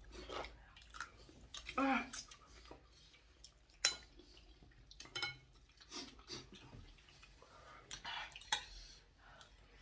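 Spoons and cutlery clinking against dishes during eating, in scattered short clicks with the sharpest about four seconds in, among brief snatches of quiet voices.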